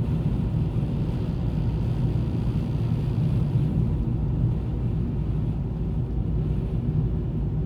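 Steady low rumble of a moving car heard from inside the cabin: engine and road noise at an even speed.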